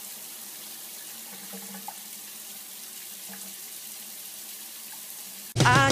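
Bathtub tap running steadily, a thin stream of water falling onto a cat's back in the tub. Loud music cuts in suddenly near the end.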